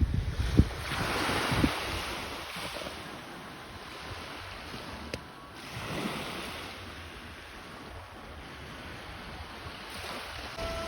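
Sea waves washing onto the shore, swelling twice, with wind buffeting the microphone.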